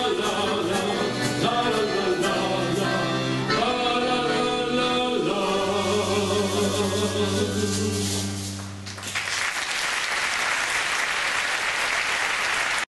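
Live accordion-led folk music closing on a long held final chord that dies away about nine seconds in, followed by audience applause.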